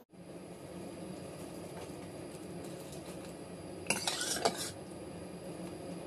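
A cup scooping ube mixture from a stainless steel pot, clinking and scraping against the metal for under a second about four seconds in. Steady background noise runs under it.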